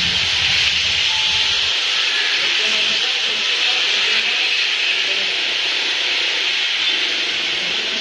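Steady hiss of rain and traffic tyres on a wet city street.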